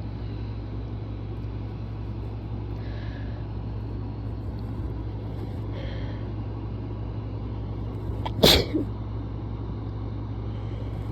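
A person's strong sneeze, one sudden loud burst about eight seconds in with a brief catch of breath right after it, over a steady low hum.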